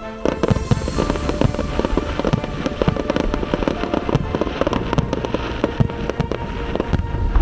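Aerial fireworks going off in rapid succession: many sharp bangs and crackles, with a brief hiss about half a second in. Music plays steadily underneath.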